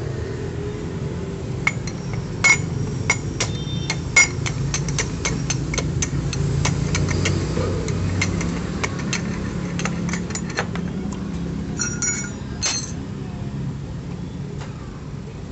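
Steel rod knocked against a bearing inside a scooter's CVT pulley hub to drive it out: a long run of sharp metallic taps, several a second, with a few louder clanks and a short cluster near the end.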